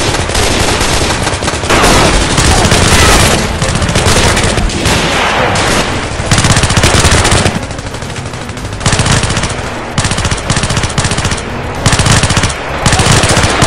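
Rapid automatic rifle fire, many bursts overlapping in a sustained firefight, with a short lull a little past the middle before it picks up again. The shots are sound effects laid over a staged assault with added muzzle flashes.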